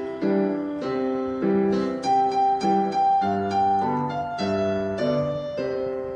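Piano-sound keyboard playing a simple song accompaniment, chords struck about twice a second. Near the end a last chord is held and rings on, fading.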